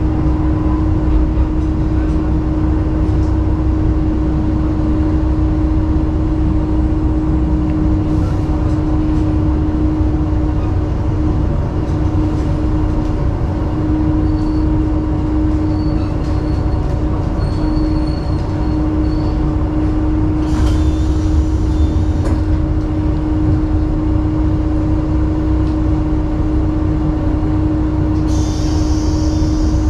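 KiHa 11 diesel railcar running along the line, heard from inside the car: a steady engine drone with a constant hum over the rumble of the wheels on the rails. Faint brief high squeals come in the middle, and a short hiss near the end.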